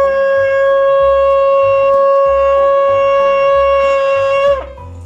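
A shofar sounded in one long, steady blast. It holds a single strong note, then sags slightly and stops about four and a half seconds in.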